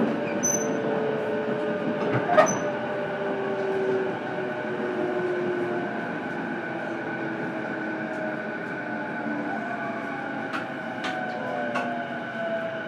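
Onboard running sound of a JR East E233-8000 series electric train heard inside a motor car: the traction motor and inverter tones slowly fall in pitch as the train slows, over steady running noise. A sharp click comes about two and a half seconds in, and a few fainter ones near the end.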